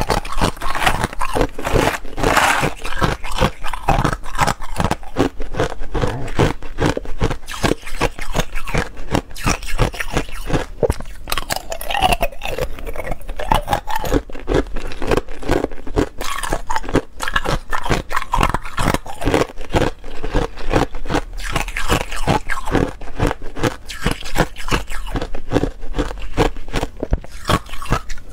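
Thin, hollow ice cubes being bitten and chewed close to the microphone: a dense, irregular run of brittle cracking and crunching.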